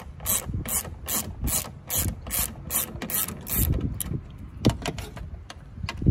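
Hand ratchet undoing a car door mirror's 8 mm mounting bolts, its pawl clicking in a steady run of strokes about two and a half a second. The strokes slow to a few scattered clicks after about four seconds.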